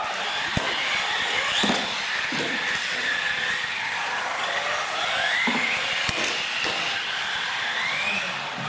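Electric motors of radio-controlled UTV model trucks whining, their pitch rising and falling as the cars speed up and slow down around the course, with a few short knocks along the way.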